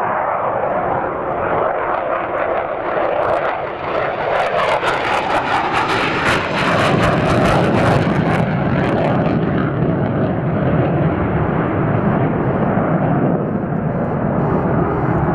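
McDonnell Douglas F-15 Eagle fighter jet passing low on a missed approach, its twin jet engines loud. The jet noise sharpens into a crackle from about four to eight seconds in, then eases into a steady low rumble as the aircraft moves away.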